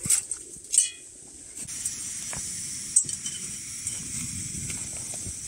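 Two metal clinks of camp cooking gear near the start, the second ringing briefly. Then, from under two seconds in, a camping stove's burner hissing steadily under a steel pot of water, with a few small knocks.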